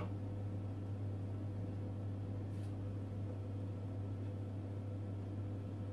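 Steady low hum of kitchen room tone, with a faint click about two and a half seconds in.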